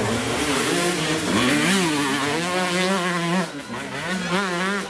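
Enduro motorcycle engine revving up and down in quick throttle bursts as the bike works through a rocky obstacle. It eases off briefly about three and a half seconds in, then revs again.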